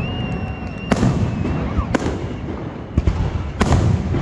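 Aerial fireworks display: four sharp shell bursts about a second apart over a continuous low rumble. Near the start a high whistle rises and then holds its pitch for about a second and a half.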